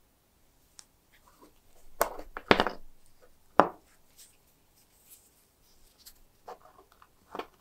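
Glass prisms handled on a wooden workbench and freed from a spring clamp: a few knocks and clicks, with a loud cluster about two seconds in and a sharp knock a second later, then lighter taps near the end.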